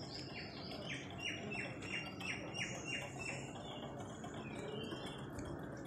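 A small bird chirping faintly, a quick series of about ten short, high, falling chirps at roughly three a second that stops after about three seconds.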